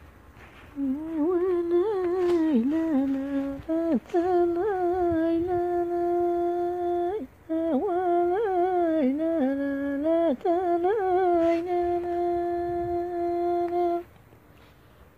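A single high voice humming a slow, ornamented melody without words. It wavers through quick turns and settles into long held notes, with brief breaks for breath, and stops about a second before the end.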